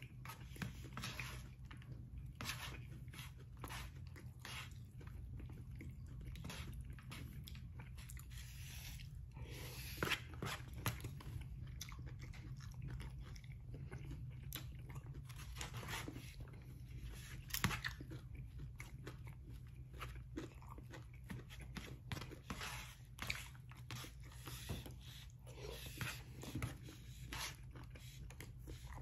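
A person chewing mouthfuls of brisket stir-fry, with wet mouth noises and scattered sharp clicks of a metal spoon at the plate and mouth, the sharpest about ten seconds in and again a little past halfway. A steady low hum runs underneath.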